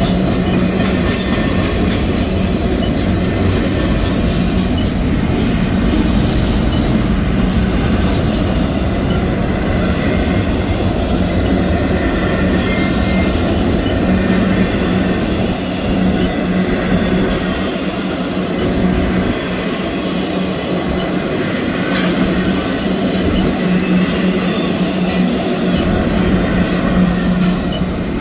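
Double-stack intermodal freight well cars rolling past at close range: a loud, steady rumble of steel wheels on rail, with a few sharp clacks and faint high wheel squeal now and then.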